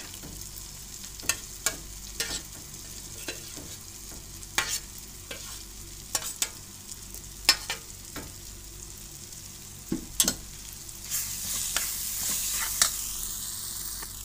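A spoon stirring bitter gourd (karela) into an onion-tomato masala in a metal pan over a steady frying sizzle, with irregular clinks of the spoon against the pan. The sizzle grows louder for a couple of seconds near the end.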